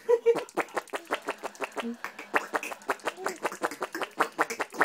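A baby making funny mouth noises: a quick run of sharp clicks, several a second, with a few short pitched squeaks among them.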